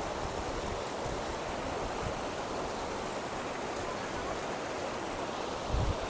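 Mountain stream rushing steadily, an even unbroken hiss of flowing water.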